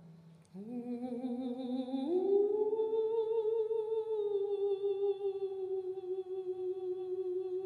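A single voice humming a long sustained note, starting about half a second in, sliding up to a higher pitch about two seconds in and then held steady with a slight vibrato.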